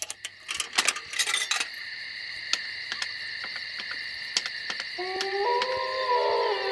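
Telephone sounds: a quick rattle of coins dropping and clicking into a payphone, with a steady high line tone behind it and a few single clicks after. About five seconds in, synthesizer notes start a synth-pop track.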